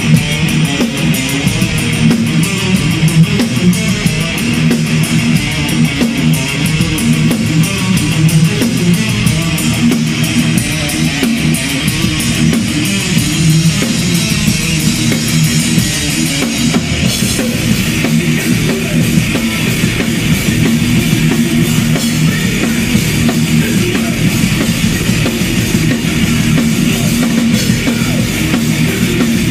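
Thrash metal at high volume: a drum kit played with fast, dense, evenly spaced strokes under distorted electric guitar. The drum pattern changes about seventeen seconds in.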